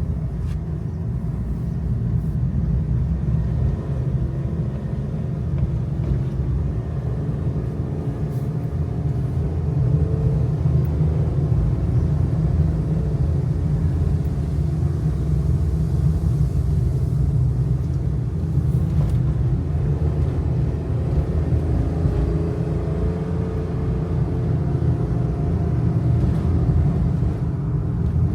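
Kei truck under way, its small engine running with a steady low road-and-tyre rumble; the engine note drifts up and down a little as the truck drives.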